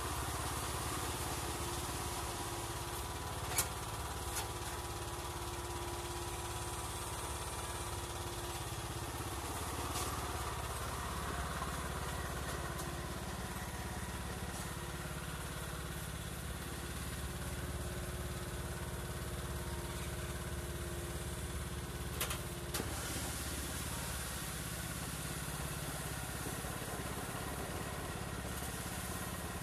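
Riding lawn mower engine running steadily as the garden tractor with a homemade front bucket loader moves over gravel. Two sharp knocks cut through it, one a few seconds in and another about two-thirds of the way through.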